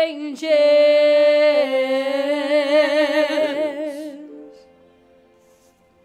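A woman singing one long held note with vibrato that widens as it goes, over soft sustained backing music. The note ends about four seconds in and the backing carries on quietly.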